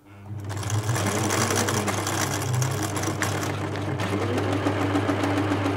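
Singer Futura 2002 electronic sewing machine coming up to speed and running steadily, with a motor hum and fast fine ticking from the needle and hook. Its rotary hook in the bobbin case, very noisy before, has just been given a drop of oil.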